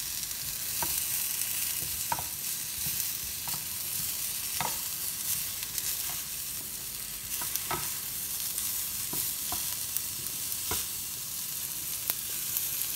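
Tenderstem broccoli, baby carrots and new potatoes sizzling in a little oil on a hot ridged griddle pan. A dozen or so light clicks are scattered through it as the vegetables are moved around the pan.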